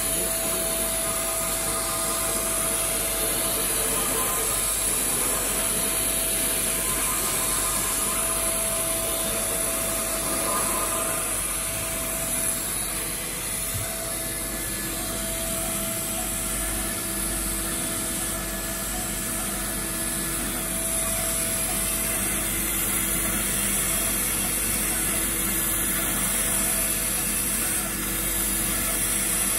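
A 5-axis CNC router's spindle running steadily with a high whine as its cutter mills a block, over a steady machine hum.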